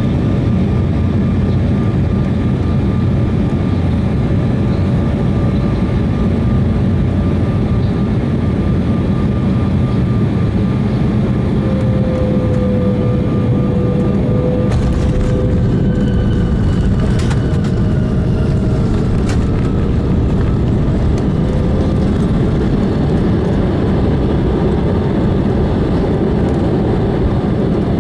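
Steady roar of jet engines and airflow heard inside an Embraer airliner's cabin during landing, with a faint tone that glides down and back up and a few brief knocks about halfway through.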